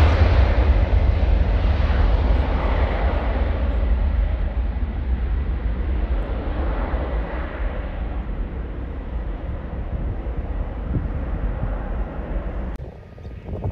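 Twin-engine jet airliner at takeoff power, its engine roar with a deep rumble slowly fading as the plane rolls away and climbs out. The sound drops off abruptly near the end.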